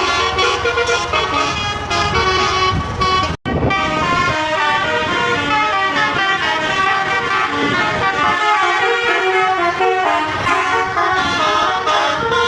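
Bus telolet horns playing quick multi-note tunes, their pitches stepping up and down, with tunes from two buses answering and overlapping. A brief dropout about three and a half seconds in.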